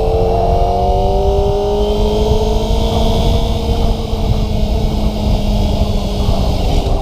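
Kawasaki ZX-25RR's 249 cc inline-four engine running under way. Its pitch rises slowly over the first couple of seconds, then fades under heavy wind rumble on the microphone.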